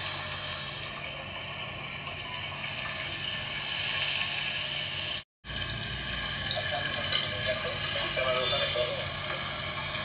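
Salmon fillets and vegetable pieces sizzling in coconut oil on a hot electric grill pan, a steady hiss that cuts out for a moment about five seconds in.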